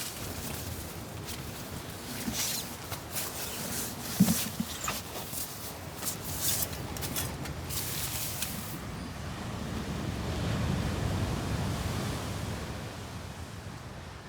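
Irregular sharp clicks and rustles for about nine seconds, then a rush of wind and surf that swells and fades away.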